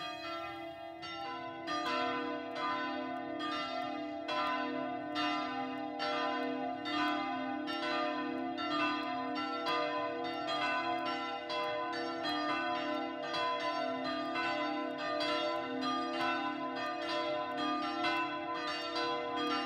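Church bells ringing out at the close of a service, struck again and again at an even pace, their tones overlapping and ringing on.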